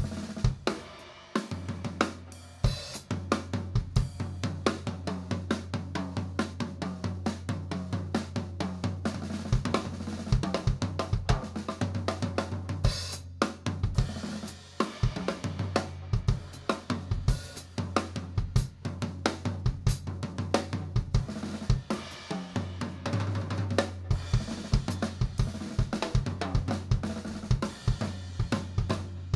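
Live jazz band playing, with the drum kit to the fore: dense snare, bass drum and cymbal strokes over a steady bass line.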